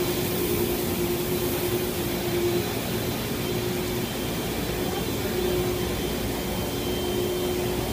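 Heidelberg web offset printing press running in the press room: a steady mechanical din with a constant hum through it that drops out briefly now and then.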